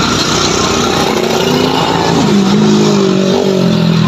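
A motor vehicle engine running close by, a pitched hum that grows stronger about two seconds in.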